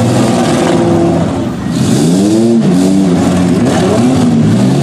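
Several demolition-derby minivan engines running and revving hard, their pitches rising and falling as they are floored and let off. A broad rush of noise about two seconds in.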